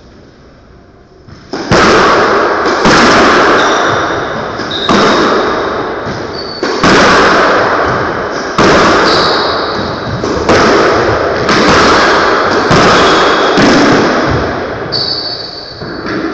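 Squash rally: the ball cracking off racquets and the court walls roughly once a second, each strike echoing around the enclosed court, starting about a second and a half in. Short high squeaks of court shoes on the wooden floor come in between the strikes.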